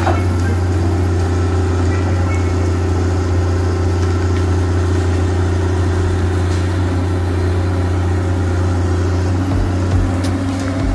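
Komatsu hydraulic excavator's diesel engine running steadily, a deep even hum, as the machine works its bucket through brush. A few sharp cracks come near the end.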